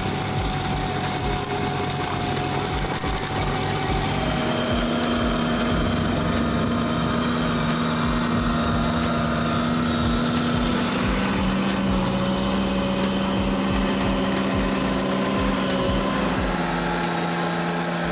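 Tractor engine running under load, driving a rear-mounted forestry mulcher's toothed rotor through soil and roots: a steady mechanical drone whose engine note shifts in pitch a few times.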